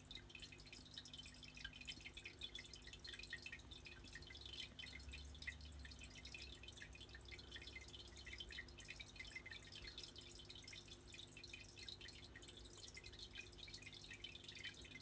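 Faint water dripping and trickling: a dense patter of small droplet plinks over a low, steady hum.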